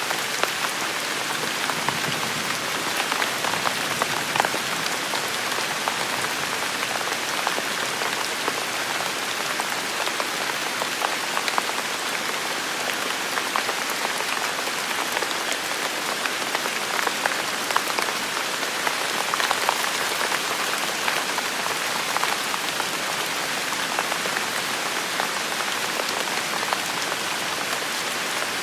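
Steady rain falling on a surface, an even hiss with many fine drop ticks.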